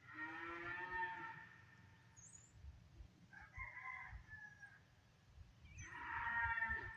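Farm animal calling: three drawn-out, pitched calls, one at the start, one in the middle and one near the end.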